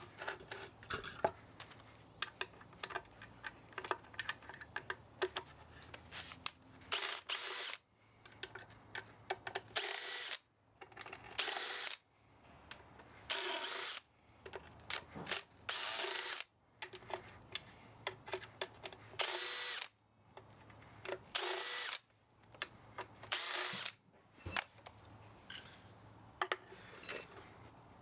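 Power drill run in about eight short bursts, its motor whine rising as it spins up and falling as it stops each time. Between bursts come light clicks and rattles of metal parts being handled.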